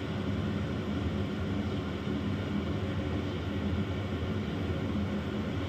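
Steady low hum with an even hiss above it, unchanging throughout, with no popping yet.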